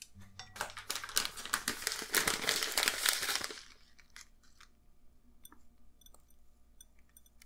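Dense crinkling and crackling for about three seconds that stops suddenly, followed by faint scattered ticks.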